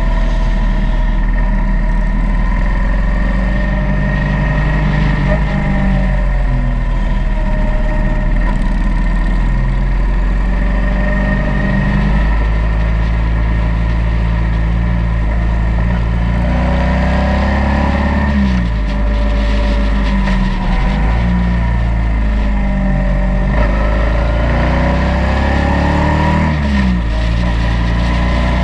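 Motorcycle engine running steadily while riding, its pitch dipping and rising again several times in the second half as the throttle eases and opens through the bends.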